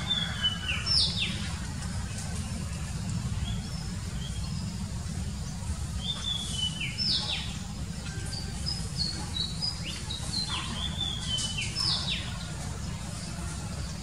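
Oriental magpie-robin singing: phrases of clear whistled notes that step between pitches, with quick sharp downward slurs. There is a burst about a second in, another around six seconds, and a longer run from about eight to twelve seconds, over a steady low background hum.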